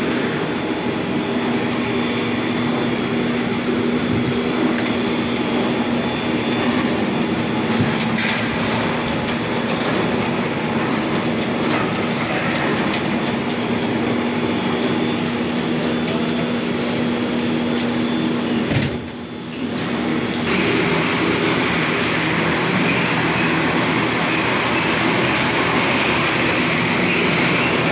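Puff snack processing line machinery running: a steady mechanical drone with a constant hum. It dips briefly about two-thirds of the way through.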